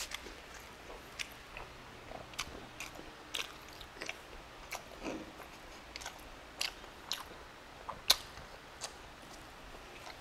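Close-miked mouth sounds of a man chewing soft braised beef stew: short, irregular clicks and smacks, one or two a second, with a sharper one about eight seconds in.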